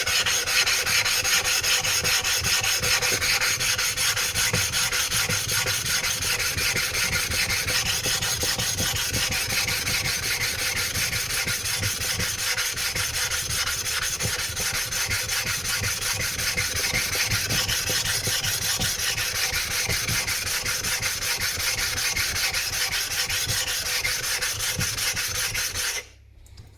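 A wet 200-grit flattening stone being rubbed hard over a 320-grit water stone, a continuous gritty rasping as it grinds the stone's surface flat. The sound stops abruptly near the end.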